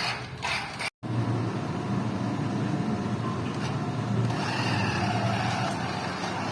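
Remote-control toy car driving, its electric motor and tyres making a steady running noise that gets louder about four seconds in, after a second of light clicks and handling noise.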